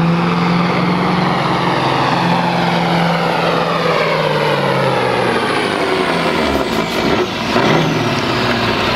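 Mack cabover semi truck's diesel engine running at full throttle while pulling a weight-transfer sled, its note slowly dropping in pitch as it bogs down under the load. About seven seconds in the sound changes and briefly dips as the pull winds down.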